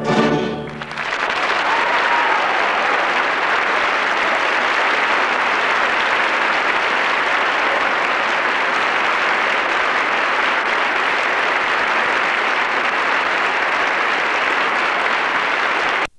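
The orchestra's last chord ends within the first second, and an audience then applauds steadily. The applause cuts off abruptly near the end.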